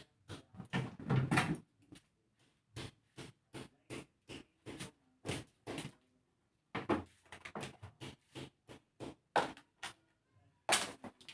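A series of sharp knocks and scrapes, about two a second with a couple of short pauses: thick frost and ice being chipped and pried off inside a refrigerator's freezer during defrosting.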